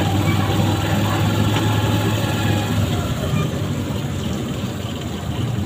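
Motorcycle engine of a motorized tricycle running steadily under way, heard from inside the sidecar as a constant low hum.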